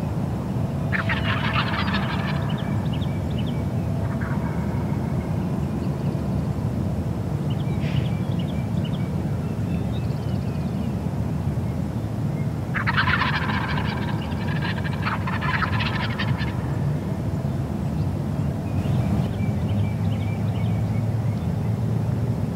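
Wild turkey gobbler gobbling: two loud, rattling gobbles, one about a second in and another about halfway through, with fainter calls between them. A steady low rumble runs underneath.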